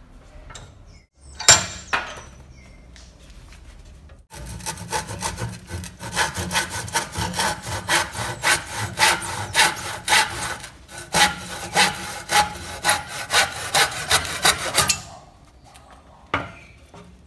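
Handsaw crosscutting a pine batten held in a bench vise: steady back-and-forth rasping strokes, about two a second, from about four seconds in until the cut is through. A single knock comes before the sawing starts and another shortly after it ends.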